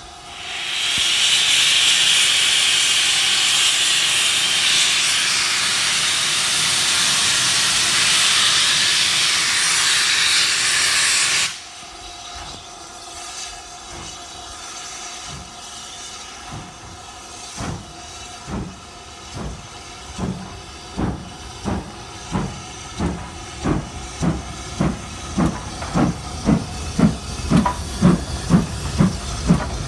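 BR Standard Class 5 steam locomotive 73082: a loud, steady hiss of steam that cuts off suddenly after about eleven seconds. Then the chimney exhaust beats of the engine starting away, slow at first, quickening to about two and a half chuffs a second and growing louder as it passes close by.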